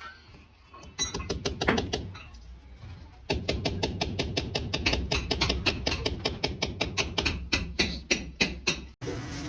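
Hammer driving nails to fix wire mesh over a wall-to-column joint: a quick run of sharp taps, about five a second, in two stretches, with a short burst before them.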